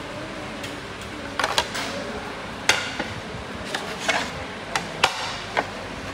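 Ceramic dinner plates clinking and knocking as they are lifted off a stack and set down on a glass tabletop: a string of sharp, short clinks spread unevenly through the few seconds, over a low room hum.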